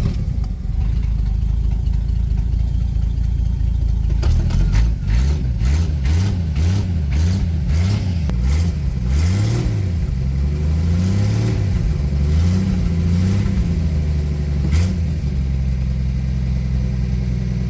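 1961 Studebaker Lark's engine running after starting without the gas pedal being pumped. It is blipped up and down repeatedly for several seconds, then settles to a steady idle that sounds okay. One sharp click is heard a little before the end.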